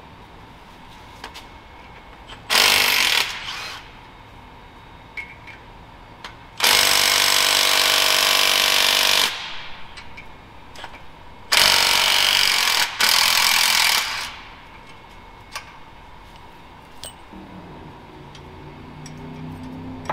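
Power tool, most likely an impact wrench, running in three runs: a short one, then two of about two and a half seconds each, the last with a brief break. It is taking the exhaust manifold stud nuts and studs off a Cat 3406E diesel.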